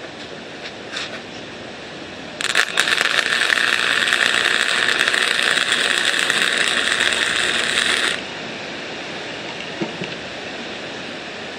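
Electric welder laying a weld on the steel frame rails: a steady crackling buzz that starts abruptly about two and a half seconds in, runs for about six seconds and stops sharply. A steady hiss of wind lies under it throughout.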